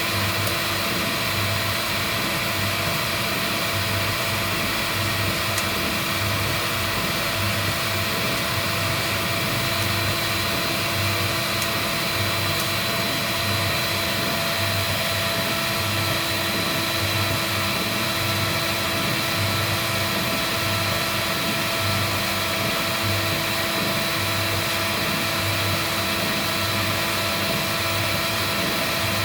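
Heat gun blowing steadily, with a low hum under it that pulses about once a second.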